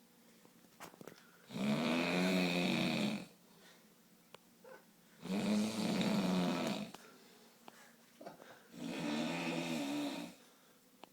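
A man snoring in his sleep: three long snores of nearly two seconds each, about three and a half seconds apart.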